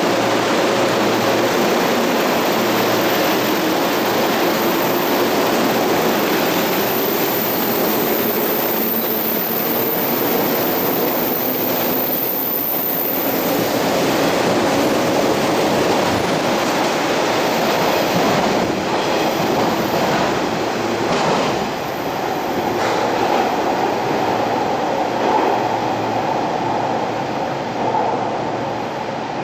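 485-series electric train running on the rails: a loud, steady run of wheel and motor noise that eases slightly near the end.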